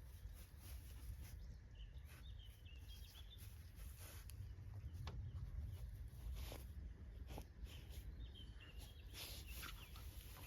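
Quiet outdoor ambience with a low rumble, faint bird chirps twice, and a few soft ticks.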